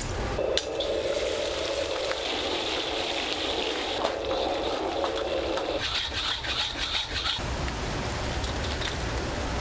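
Shrimp sizzling and frying in a wok on a restaurant gas range, a steady hiss that changes character about six seconds in.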